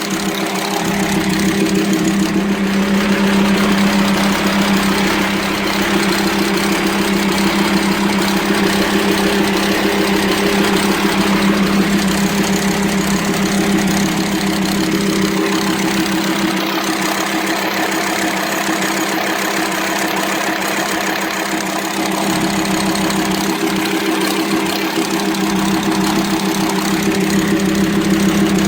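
VW Transporter T5 2.5 TDI five-cylinder diesel (AXD/AXE) idling steadily with a loud, noisy clatter from the cylinder head and intake manifold. This is the sign of a worn and broken camshaft, which the owner blames for the rough idle and the metal dust in the oil.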